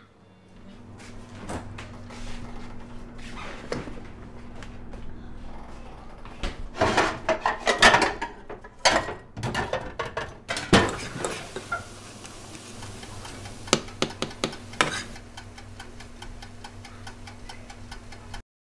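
Kitchen clatter of breakfast being made: sharp clinks and knocks of dishes, utensils and a cabinet or appliance door, busiest in the middle, over a steady low hum. It all cuts off just before the end.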